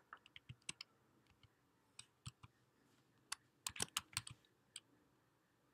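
Faint keystrokes on a computer keyboard typing a short name: scattered single key taps, with a quick run of several keys about two-thirds of the way through.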